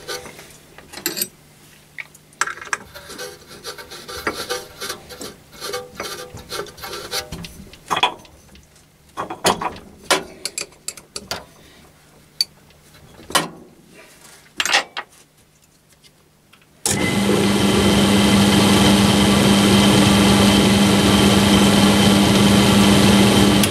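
Scattered clicks and rubbing as the pulleys and belt of a small bench pillar drill are handled and refitted. About seventeen seconds in, the drill's motor is switched on and runs steadily with a hum, its spindle bearings freshly oiled.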